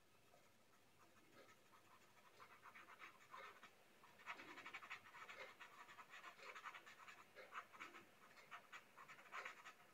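Faint pencil shading on paper: quick, short scratchy strokes of the graphite tip, repeated in fast runs and heard more from about three seconds in.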